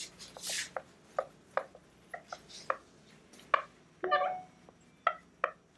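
Whiteboard eraser wiping across a whiteboard: a swish, then a run of short rubbing strokes and knocks about two a second, with a brief squeak about two-thirds through.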